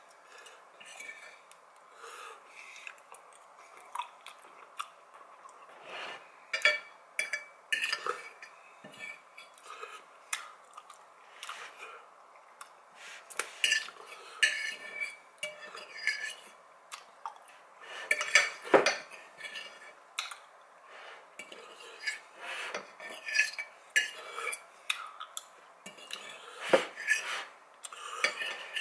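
Metal fork clinking and scraping against a ceramic bowl of pasta in irregular taps and clicks, with two sharper knocks, one about two-thirds of the way in and one near the end.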